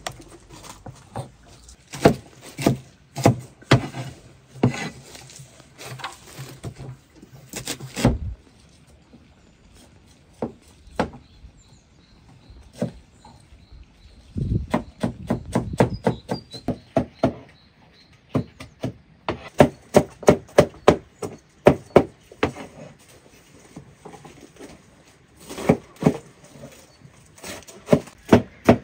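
Knife chopping cabbage on a wooden cutting board: runs of quick, sharp strikes, with slower scattered knocks in between.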